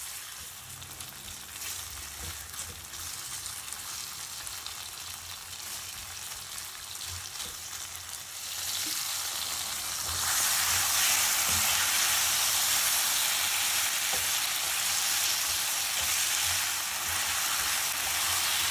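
Chicken thigh pieces sizzling in hot oil in a nonstick frying pan while being stirred with a plastic spoon. The sizzle grows much louder a little past halfway, with occasional soft knocks from the stirring.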